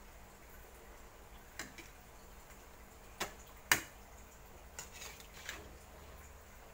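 A few sharp clicks from a wok of fish cooking in sauce, five in all, the loudest about midway, over a faint steady background.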